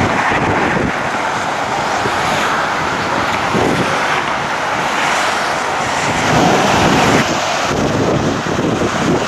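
Strong, gusty storm wind blowing across the microphone, with the wash of choppy water beneath it.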